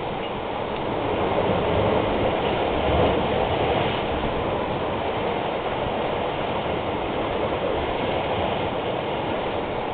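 Sea surf breaking and washing over rocks: a steady rushing noise that swells a little a couple of seconds in.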